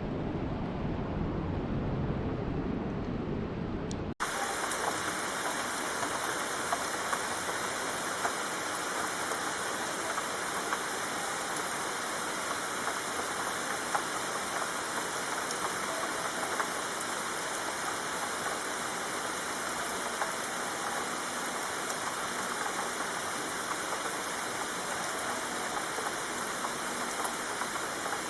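A low rumbling wash of noise cuts off abruptly about four seconds in, replaced by the steady hiss of tropical rain with scattered sharp drop ticks.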